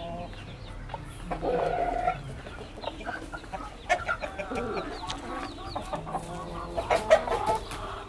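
Chickens clucking and calling in short bursts: a louder call about a second and a half in, more about four seconds in, and again near seven seconds, with a few sharp clicks near the end.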